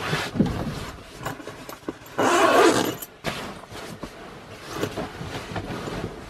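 Close handling and rustling noise: fabric of a sleeping bag and bedding being shifted right by the microphone, with scattered small knocks and a louder burst of rustling about two seconds in.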